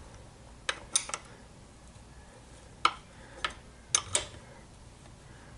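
Several short, sharp metallic clicks and clinks, spread unevenly over a few seconds, from a hand tool working the rear-wheel chain adjuster bolt on a motorcycle swingarm, taking the adjuster one small turn further.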